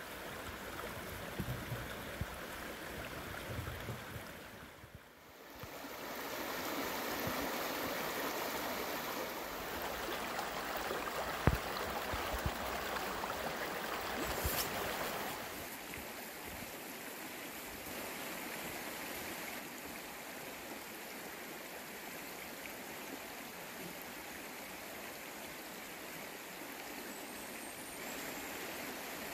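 Shallow rocky creek running over stones, a steady rush of water, with one sharp tick near the middle. The sound dips out briefly about five seconds in and is somewhat quieter in the second half.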